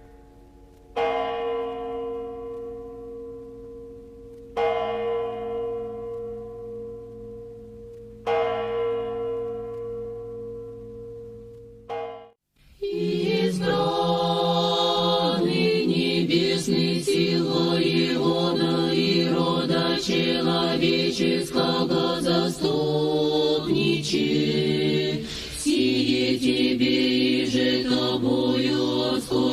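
A church bell tolled in three slow strokes a few seconds apart, each ringing out and fading. About halfway through it breaks off and a choir begins singing slow chant, sustained and full.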